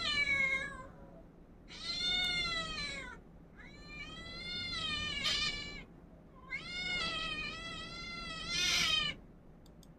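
Recorded cat meowing played through computer speakers: four long, drawn-out meows in quick succession.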